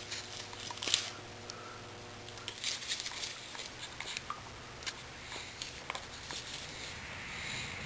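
Scattered handling noises in a small room: light rustling and crackling with irregular clicks, one sharper click about a second in.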